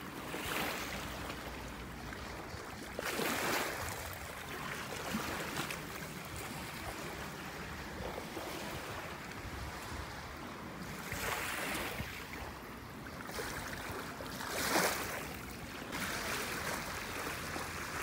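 Small lake waves washing onto a pebble shore, with wind on the microphone; the wash swells up every few seconds.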